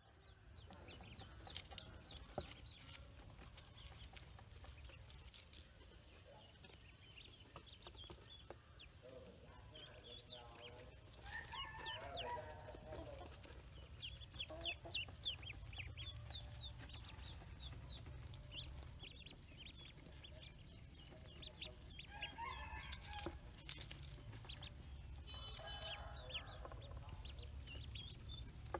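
A group of Pekin ducklings peeping continuously: many short high peeps overlapping, with a few lower, longer calls mixed in now and then, over a faint steady low rumble.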